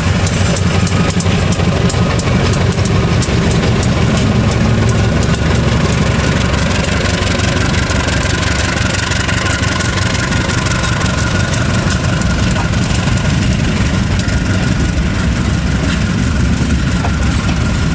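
KAI CC 201 diesel-electric locomotive running loud as it pulls a passenger train past, followed by the coaches rolling by with wheels clicking over the rail joints.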